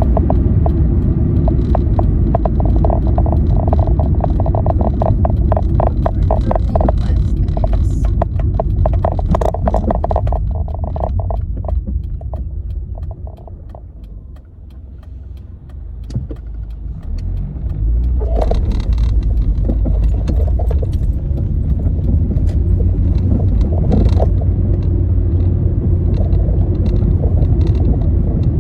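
Car driving on a road: a steady low rumble with a rapid rattle through the first ten seconds. The rumble dies down to a lull around the middle, as if the car slows, then builds back up as it picks up speed.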